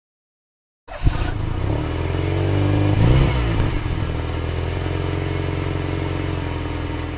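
An engine running steadily, starting with a sharp click about a second in, its pitch wavering up and down briefly about three seconds in.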